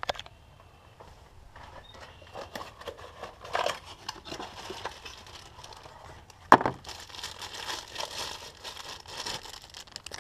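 Rustling and crinkling of packaging as a new ignition coil pack is unwrapped, with one sharp knock about six and a half seconds in.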